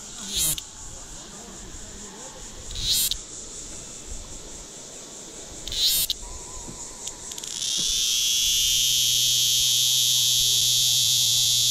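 Cicada calling: three short high-pitched buzzes a few seconds apart, then a loud, continuous shrill buzz that switches on about eight seconds in and holds steady.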